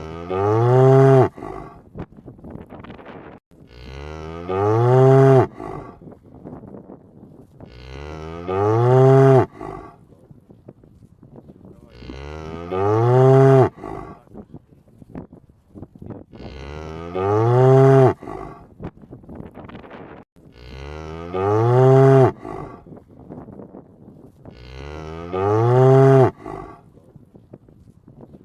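A cow mooing: the same long moo, rising in pitch at its start, repeated about every four seconds, seven times over.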